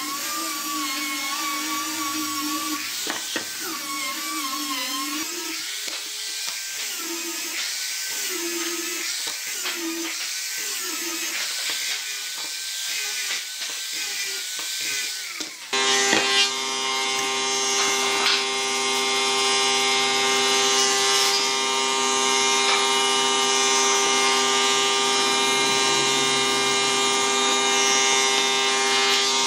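Small handheld electric sander with a round sanding disc working over wooden boards, its whine wavering in pitch as it is pressed into the wood. About halfway through it gives way suddenly to a louder, steady hum of several held tones.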